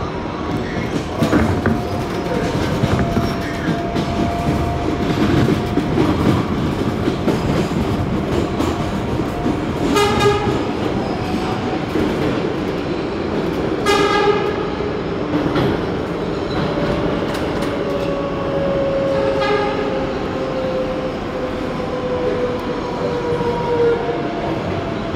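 A New York City subway 7 express train running at speed, heard from inside the car: a steady rumble and clatter of wheels on rail, with long, slowly gliding squeal tones. Three brief shrill tones stand out about 10, 14 and 19 seconds in.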